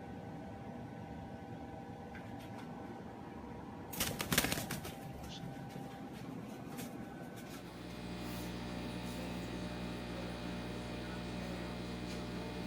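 A short flurry of rustling and clattering about four seconds in, then a steady low hum with several tones that starts about eight seconds in.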